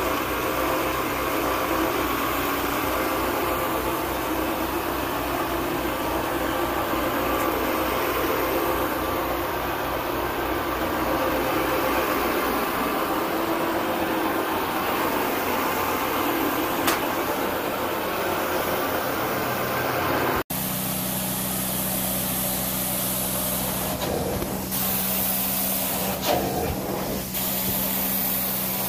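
Carpet extraction machine running steadily, its vacuum motor making a loud hiss over a low hum. After a cut about two-thirds through, the hum changes as the cleaning wand sprays and sucks water from the carpet.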